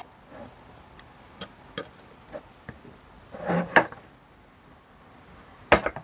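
A thin metal tool scraping and ticking against the copper heat-spreader plate inside a metal mini PC case, working off old thermal paste. Scattered light clicks, with a sharp double click near the end.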